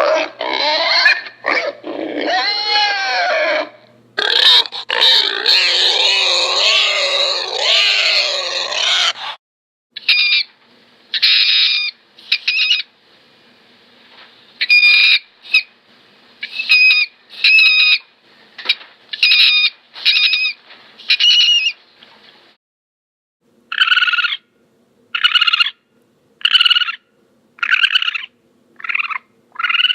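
Studio animal sound effects: a dense, warbling jumble of overlapping animal calls for about nine seconds, then a run of short, separate calls about one a second, with a brief pause two-thirds of the way through.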